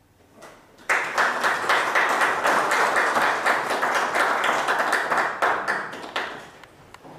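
An audience applauding: the clapping starts sharply about a second in, holds steady, and dies away near the end.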